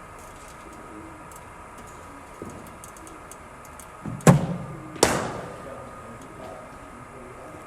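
A cricket bowling machine fires a ball with a dull thump, and a moment later a bat strikes it with a sharper crack that rings on briefly, over a steady faint hum.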